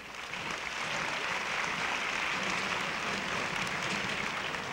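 A large audience applauding, a steady dense clapping that starts up suddenly and holds throughout.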